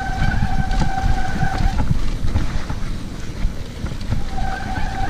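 Mountain bike rolling fast down a rough trail, with a heavy rumble of wind and terrain and scattered rattles and knocks from the bike. A steady high whine sounds for the first second and a half and comes back near the end.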